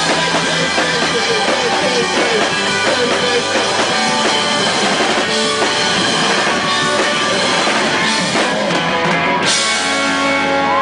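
Rock band playing live and loud: a drum kit, electric guitars and bass. About nine and a half seconds in, a final crashing hit rings out over held chords, the end of the song.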